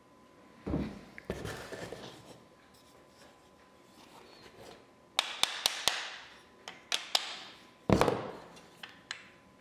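A small hammer tapping on an antique wooden plow plane: a quick run of sharp taps about halfway through, a few more after, and a heavier knock near the end. Knocks and rustling from the plane being handled on the bench come about a second in.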